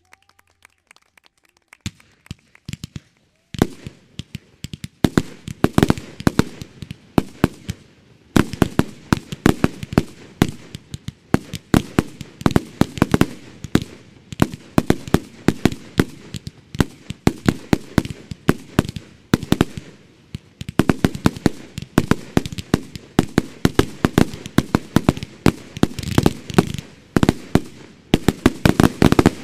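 Consumer (category F2) firework batteries firing their finale: a few scattered pops, then from about two seconds in a dense, continuous barrage of rapid shots and bursts.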